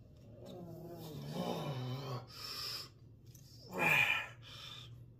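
A man's wordless groans and heavy breathing from the exertion of swinging heavy Indian clubs. A long wavering groan is followed by a hissing breath out, then a louder groan falling in pitch about four seconds in.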